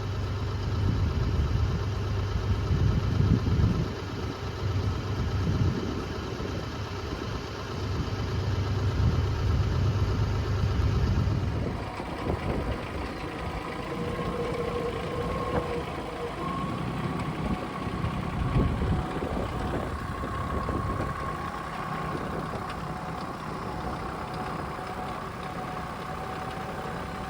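Tractor engine running steadily, louder for the first dozen seconds; the sound changes abruptly about twelve seconds in and goes on quieter after that.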